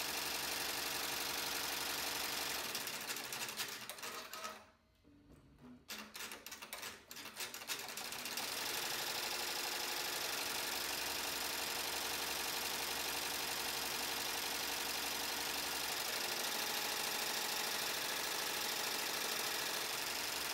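12-needle MakeIT P&E commercial embroidery machine stitching at speed, a steady rapid mechanical clatter. About four and a half seconds in it drops almost to silence, with a few clicks, then runs steadily again from about eight seconds in.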